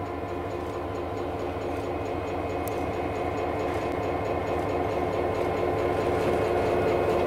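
EMD GP9 diesel locomotive running at low speed, its 16-cylinder two-stroke engine growing steadily louder as it approaches.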